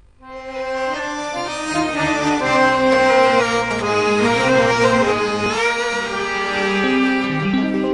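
Instrumental introduction of an Arabic song played live by a small traditional ensemble, with the accordion carrying the melody in long held notes. The music starts a moment in.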